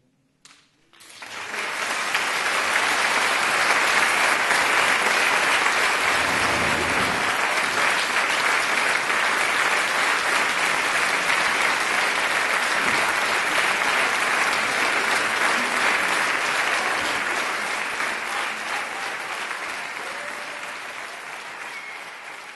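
Audience applauding. It sets in about a second in, holds steady, and slowly fades toward the end.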